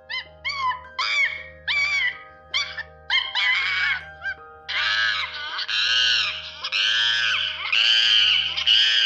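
Monkey calls: a run of short rising-and-falling calls, about two a second, then from about halfway longer, louder calls that run almost together. Background music with a steady low pulse plays underneath.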